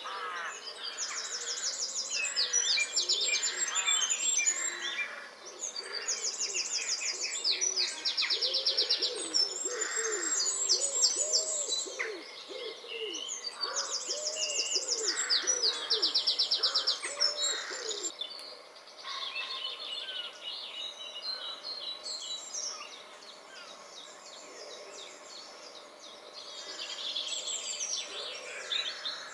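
Wild birds singing: high, rapid trills repeated every couple of seconds, joined by a run of low repeated notes about a third of the way in. The song grows fainter and quieter in the last third.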